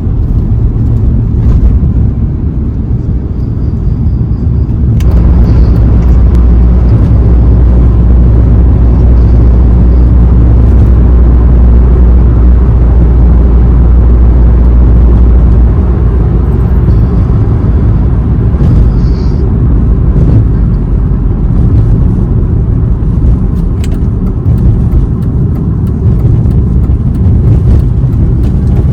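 BMW E46 318i cruising on an expressway: a steady, loud low rumble of engine and tyre noise, heaviest in the middle stretch, with a few light clicks.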